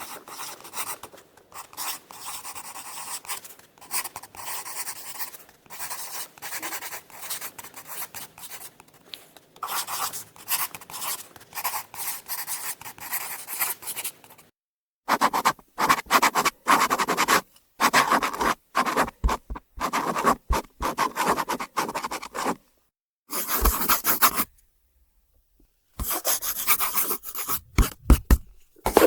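Pencil writing on paper: quick, continuous scratchy strokes, then about halfway through louder, more separate strokes broken by two short pauses.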